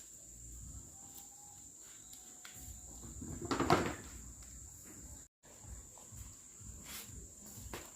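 Steady high-pitched insect chirring, with one loud short sound about three and a half seconds in and a brief break in the sound just after five seconds.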